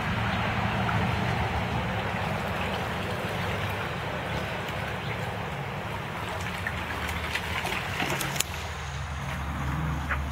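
A steady low hum and rushing background noise, with a few short splashes and sharp clicks in the second half as a dog moves about in a water-filled plastic kiddie pool.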